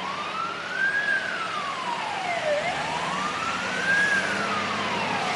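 Emergency vehicle siren wailing, rising and falling slowly about every three seconds, over the low rumble of a long convoy of utility trucks passing by.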